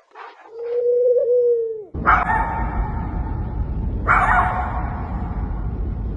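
A dog gives a drawn-out, wavering whine. Then a small dog whines in long, high cries, one every two seconds or so, over a steady low rumble.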